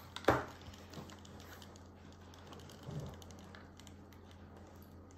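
Thick banana bread batter being scraped from a bowl with a silicone spatula and plopping into a parchment-lined metal loaf pan. A sharp knock comes about a third of a second in, and a softer thud near three seconds.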